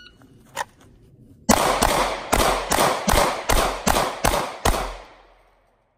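Nine pistol shots from a SIG Sauer P320, fired in an even, rapid string at about two and a half shots a second, starting about a second and a half in. The last shot's echo dies away about a second later.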